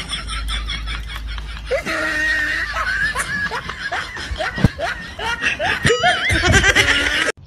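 Human laughter, a mix of snickers and chuckles.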